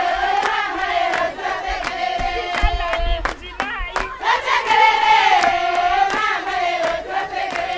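A group of high voices chanting together in unison, a phrase that starts high and slides down, sung twice, with scattered sharp clicks through it.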